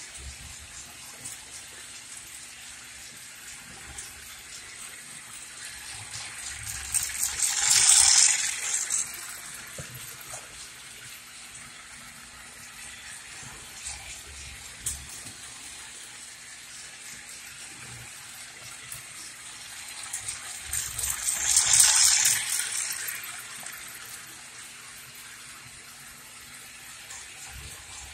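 Toy steam-locomotive train set running around its track loop: a steady hissing rattle that swells loud twice, about 14 seconds apart, as the train passes close by.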